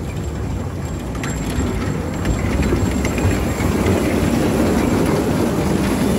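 Train running: a steady low rumble that grows louder as it goes.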